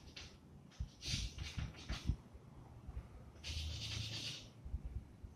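Chalk drawing on a blackboard: several short scratching strokes, a longer stroke about three and a half seconds in, and light taps of the chalk against the board.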